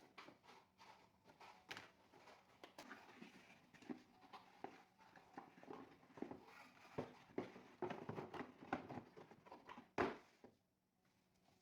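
Irregular clicks, taps and scrapes of an Acer Aspire 5 laptop being handled and worked on by hand, with one louder knock about ten seconds in.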